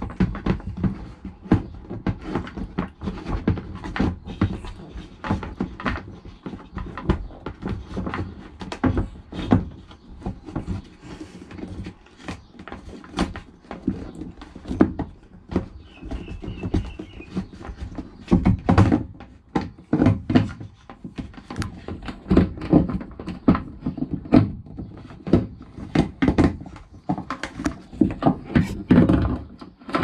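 Irregular knocks, thuds and plastic rattles of a hand groping inside a Thetford cassette toilet's plastic flush-water tank, working the flush pump loose and pulling it out.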